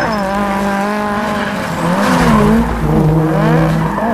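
Race car engine revving with tyres squealing. The pitch drops right at the start, then climbs again about two to three seconds in.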